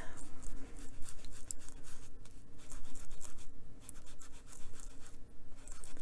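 Ink applicator scrubbing on a paper page in quick, short scratchy strokes, blending pink ink onto the paper.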